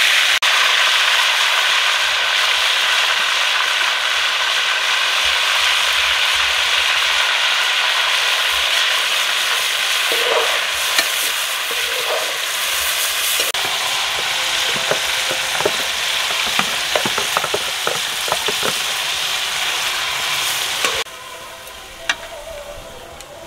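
Yogurt-marinated beef heart and kidney pieces sizzling steadily in hot ghee in a metal karahi, as the marinade's moisture fries off. From a little past halfway, a ladle scrapes and clicks against the pan as the meat is stirred. The sizzling drops away abruptly near the end.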